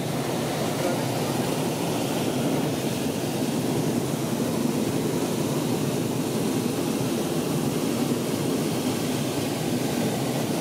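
Hot-air balloon's propane burner firing close overhead: a long, steady rushing blast.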